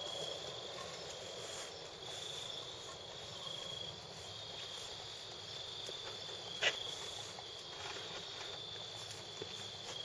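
Crickets chirping steadily over a small wood fire crackling quietly in a furnace firebox, with one sharp pop from the burning wood about two-thirds of the way through.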